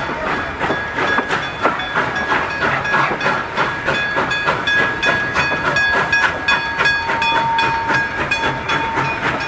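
Level crossing bell ringing in quick repeated strokes as a heritage steam train passes the crossing, over the steady clatter of the carriage wheels on the rails.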